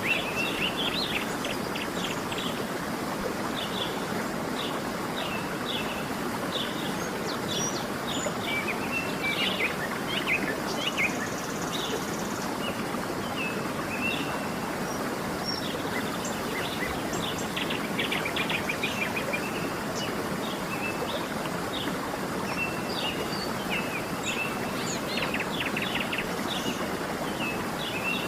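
Steady rush of a waterfall, with many small birds chirping and trilling over it in short, frequent calls.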